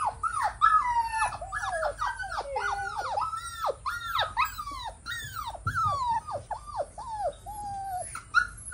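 Husky puppy whining and crying in a rapid run of high cries that mostly fall in pitch, about two to three a second, given on the owner's 'speak' command.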